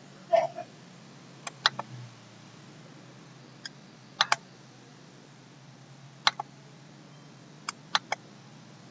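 Scattered sharp clicks at a computer, mostly in quick pairs or threes a few seconds apart, from someone working the mouse and keyboard. A duller knock sounds just after the start.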